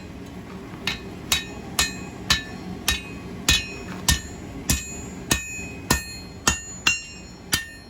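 Hammer striking hot 1/2 inch square steel bar on an anvil, folding the half-cut end back on itself, about two ringing blows a second. A steady low hum runs underneath.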